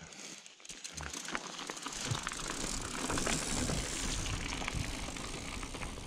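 Mountain bike rolling over a rough trail, with tyre crunch and many small rattles and clicks, growing louder over the first few seconds and then holding steady.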